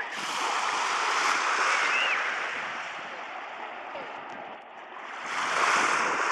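Small waves washing onto the shore, swelling twice: once in the first couple of seconds and again near the end.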